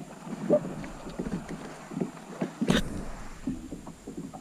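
Handling noise in a kayak: small knocks and rubs of hands and fishing gear, with one sharp knock a little past halfway.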